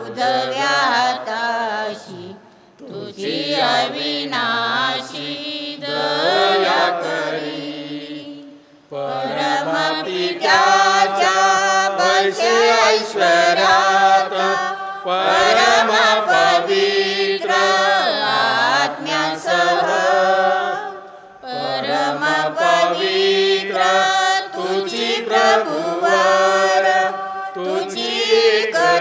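Male voices singing a liturgical chant of the Mass in long held phrases, with short breaks between the phrases.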